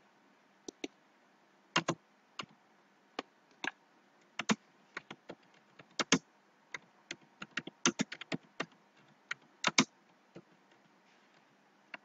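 Computer keyboard typing: irregular single keystrokes, some in quick runs, as a line of text is typed.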